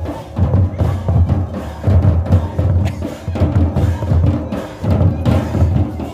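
Drums playing a dance rhythm with repeated deep, heavy beats over other music.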